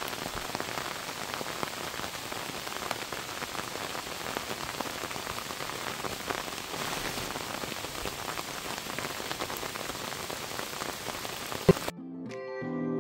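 Steady hiss and patter of water, full of tiny drips and splashes. A sharp click comes near the end, and then acoustic guitar music comes in.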